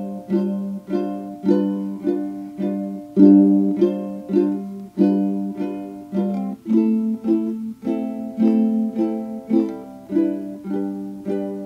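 Background music: a steady rhythm of plucked string notes, about two a second.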